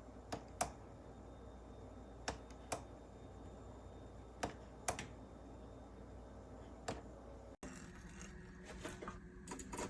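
Sharp clicks in pairs, the two about half a second apart, repeating roughly every two seconds over a low steady hum; the sound cuts off abruptly near the end, after which fainter scattered clicks follow.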